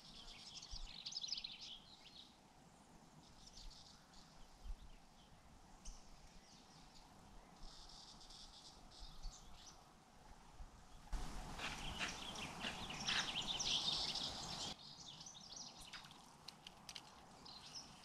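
Faint riverside ambience of small birds chirping and insects. About eleven seconds in, a louder even rush of noise sets in for three or four seconds and cuts off suddenly.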